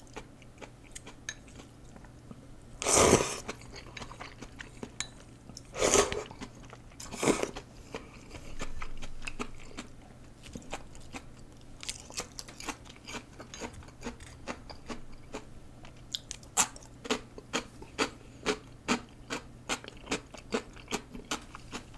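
A person eating rice noodles close to the microphone: three loud slurps in the first eight seconds, then steady wet chewing with sharp clicks about two or three times a second.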